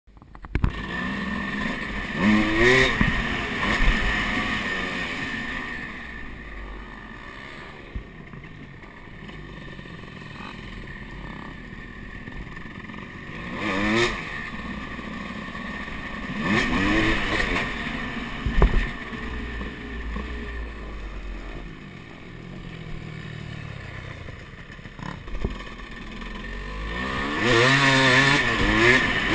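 Dirt bike engine being ridden along a trail, its pitch rising several times as the throttle opens and then dropping back, with a single sharp knock about two-thirds of the way through.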